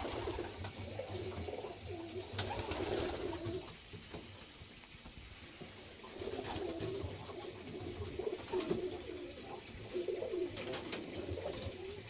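Several domestic fancy pigeons cooing, their low wavering coos overlapping almost without pause, with a few sharp clicks scattered among them.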